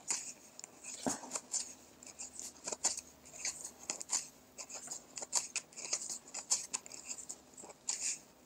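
Wooden knitting needles clicking and scraping together, with yarn rustling, as stitches are knitted off one needle onto the other: an irregular run of small, sharp clicks, several a second.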